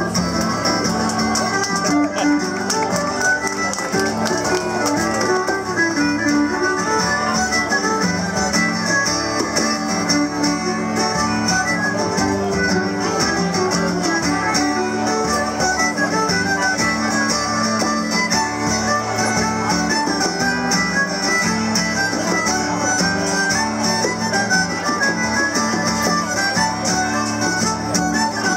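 Live Irish traditional dance tune played on concertina, fiddle and acoustic guitar, continuous throughout.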